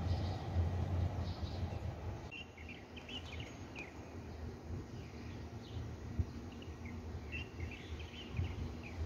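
Low rumble of a distant train that cuts off about two seconds in, followed by small birds chirping in short high calls over a faint steady hum.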